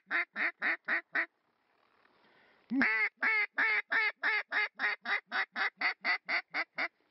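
Duck call blown in runs of quacks imitating a mallard hen: a short run of quick quacks ending about a second in, then after a pause a drawn-out first note followed by a fast, even run of about four quacks a second.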